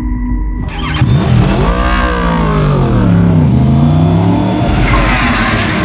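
Racing motorcycle engines at full race pace, their pitch rising and falling as the bikes accelerate and pass. They cut in loudly about a second in, over the last of some background music.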